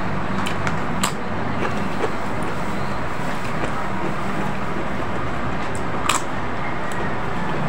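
Steady background noise with a low hum, over which crackers crunch sharply as they are bitten, once about a second in and again near the end.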